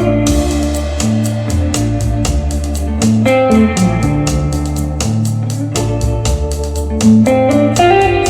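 A song's instrumental passage, with guitar, bass and a steady drum beat, played back through KEF LSX active speakers.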